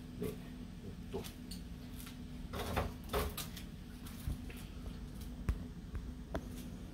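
Scattered light clicks and knocks of hand tools being handled, spread over several seconds above a steady low hum.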